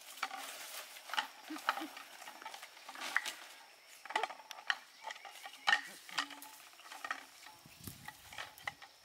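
Stirring with a utensil in a cooking pan: a run of irregular scrapes and clinks, over light sizzling from the food cooking.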